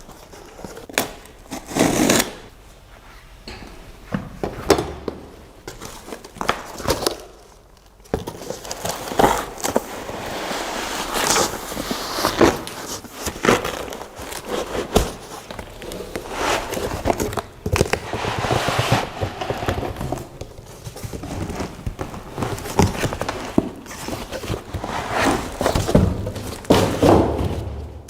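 Unboxing handling noise: a cardboard shipping box and its packing material opened and pulled apart, with irregular knocks and thunks and rustling, crinkling packaging.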